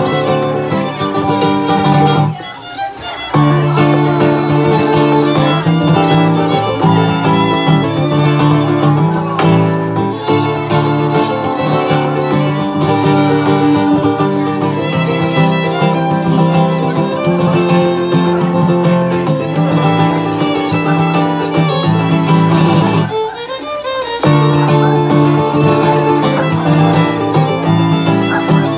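Violin and acoustic guitar playing a tune together live, the violin carrying the melody over strummed guitar. The music breaks off briefly twice, a couple of seconds in and again toward the end.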